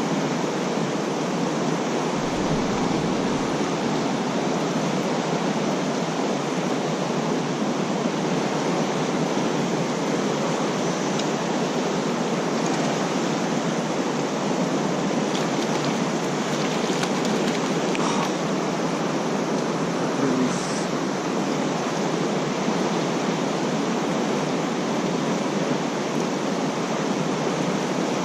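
Creek water rushing steadily in a high, fast flow.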